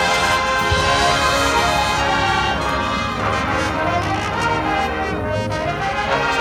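Marching band brass section playing full, held chords that move from one to the next, loud and steady.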